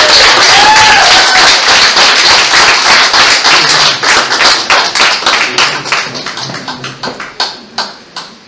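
Congregation applauding with dense clapping, plus a couple of short voiced calls near the start. The clapping thins out and dies away toward the end.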